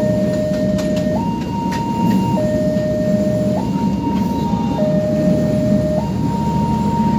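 Electronic level-crossing alarm sounding a two-tone warning, stepping between a lower and a higher pitch about every 1.2 seconds, over the rumble and occasional wheel clicks of a passenger train's coaches passing close by.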